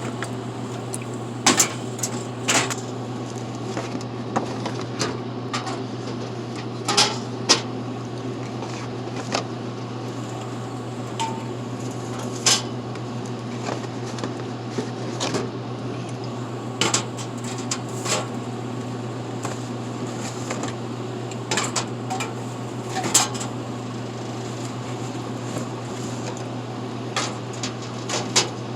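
Drink cans being loaded into the columns of a Dixie Narco vending machine: irregular metallic clunks and clicks as the cans are set in, over a steady low hum.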